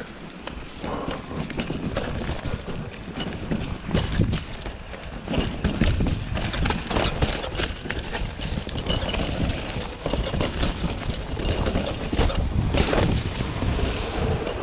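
Wind buffeting the microphone: a rough, gusting rumble with scattered crackles.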